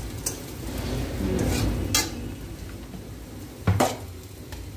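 A pot of water at a rolling boil on a gas burner, bubbling with a steady low rumble. A few sharp clinks of metal come through, the loudest near the end.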